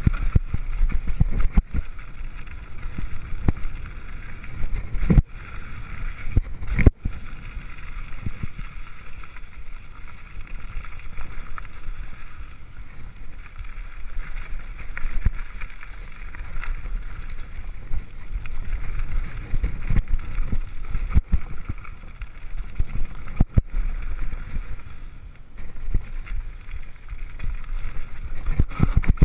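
Mountain bike descending a dirt trail, heard from a rider-mounted camera: steady wind buffeting and tyre rumble, broken several times by sharp knocks and rattles as the bike hits bumps.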